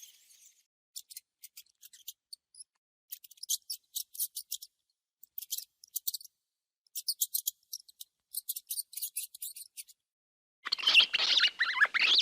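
Parrot making rapid, high clicking chirps in short bursts with pauses between, then a loud, harsh squawk near the end.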